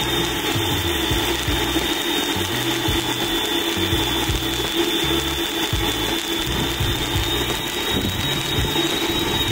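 Two cold-spark machines firing fountains of sparks: a steady, dense spraying hiss with a thin high whine. A low bass line of background music runs underneath.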